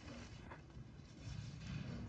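A grooming brush rasping through a young bull's coat, over a low rumble that grows louder in the second half.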